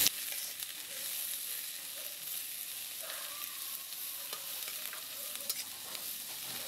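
Chopped onions and green chillies sizzling in hot oil in an iron kadai, stirred with a metal spatula that scrapes and ticks against the pan now and then.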